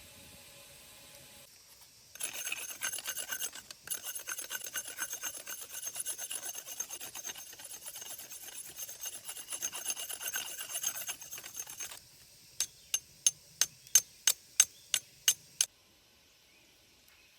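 Quick rasping strokes of a hand tool with a steady metallic ring, lasting about ten seconds with one short break. Then about ten sharp clicks, roughly three a second.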